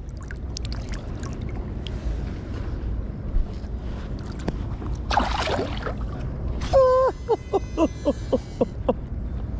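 Wind buffeting the microphone over shallow bay water, with a brief splash about halfway through as a flounder held at the surface is let go. Near the end comes one long high cry followed by a quick run of about eight short, laugh-like pitched notes.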